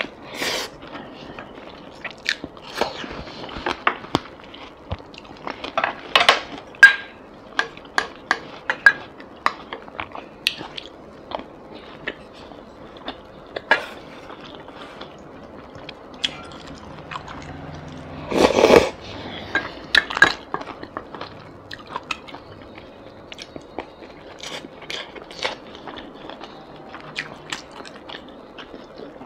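Close-miked eating sounds of a person chewing and biting braised basa fish and rice, with many short, sharp mouth clicks. Wooden spoon and chopsticks tap against the bowl and pan, and a louder, longer bite comes about two-thirds of the way through.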